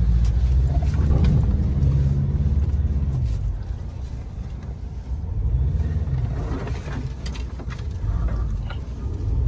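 Ford Ranger Raptor pickup's engine heard from inside the cab, pulling along a rough dirt trail. It rises and falls in pitch twice as the throttle is opened and eased.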